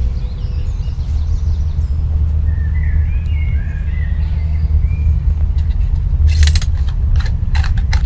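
Outdoor ambience: a loud, steady low rumble with birds chirping over it in the first half, then a run of sharp clicks and taps in the last two seconds.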